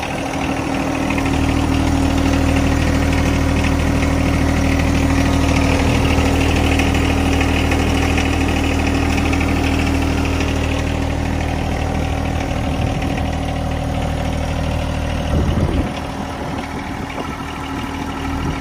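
John Deere 1025R compact tractor's three-cylinder diesel engine idling steadily, a little quieter near the end.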